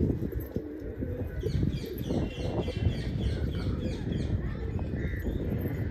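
Birds on a rooftop: a small bird gives a quick run of short, high, falling chirps, about four or five a second, starting about a second and a half in and lasting about two seconds. Pigeons coo softly underneath, over a steady low rumble.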